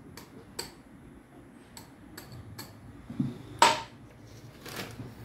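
An egg being tapped against the rim of a small drinking glass to crack it: a handful of light, sharp clicks, with one much louder knock about three and a half seconds in.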